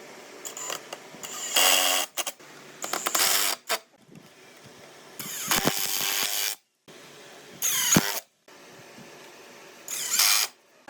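Woodworking tools working wood in a series of short bursts, with several abrupt stops between them.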